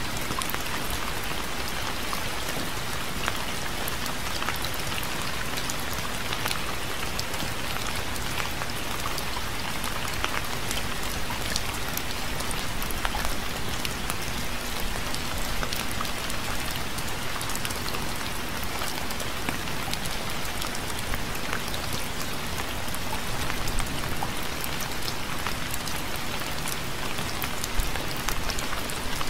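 Steady rain falling, with individual drops ticking against a surface.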